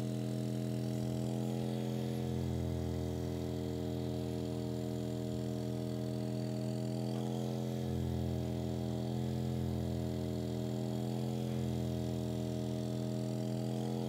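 Corded massage gun running at a steady, unchanging pitch with a hum, its head worked against the muscles of a person's upper back and shoulder to loosen them.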